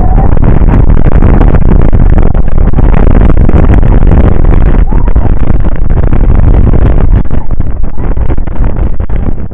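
Loud rushing and scraping of an inflatable snow tube sliding fast over packed snow, with wind buffeting the tube-mounted camera's microphone. The rush thins out and turns crackly near the end.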